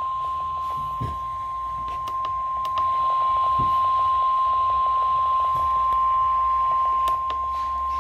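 Weatheradio Canada's warning alarm tone: a single steady beep near 1 kHz (the 1050 Hz alert tone), sounding without a break to signal a tornado warning. It plays over faint radio hum and a few soft clicks, and gets slightly louder a couple of seconds in.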